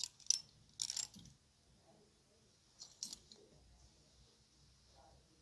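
Clothes hangers clicking and scraping against a metal clothes rack as garments are pushed along it. There is a quick run of clicks in the first second or so and a couple more about three seconds in.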